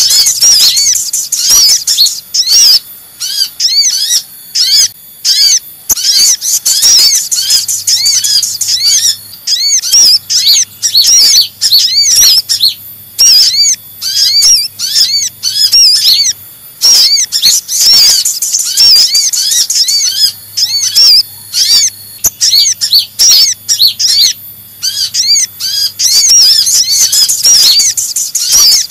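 Sunbird lure recording: a noisy, busy stream of rapid high-pitched arched chirps and twitters from kolibri ninja and sogok ontong (sogon) sunbirds calling together, in dense runs with short breaks.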